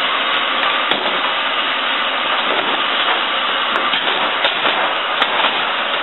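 Handheld heat gun blowing with a steady rushing noise as vinyl wrap film is heated to make it conform, with a few sharp clicks over the top.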